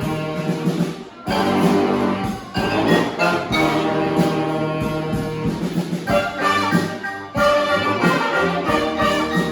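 Live brass band playing trumpets and trombones together. The band cuts off for a brief break about a second in, then comes back in at full volume.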